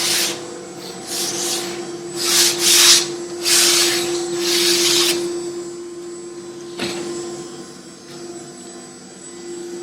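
Hand sanding on a plywood panel: several rasping strokes of about a second each, stopping after about five seconds, then a single knock. A steady machine hum runs underneath.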